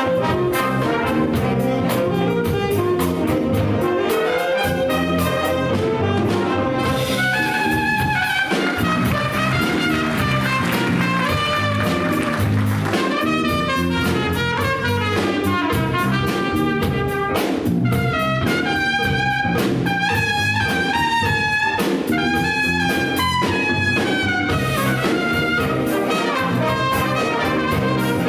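Big band playing jazz live, with trumpets and trombones carrying the melody over a steady beat.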